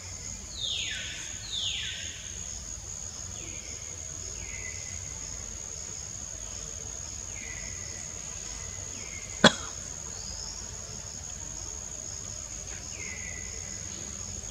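Steady high-pitched insect drone with a string of short falling calls over it, the first two about a second in being the strongest. A single sharp click about nine and a half seconds in.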